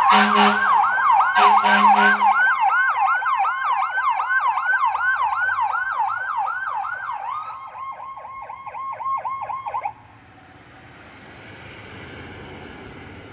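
Electronic emergency-vehicle siren in a fast yelp, with two short horn blasts in the first two seconds. About seven and a half seconds in it switches to a faster, lower warble, then cuts off near ten seconds, leaving a low traffic hum.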